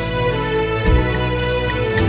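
Instrumental introduction of a hymn: held chords over a bass line, with occasional light percussion hits and no singing yet.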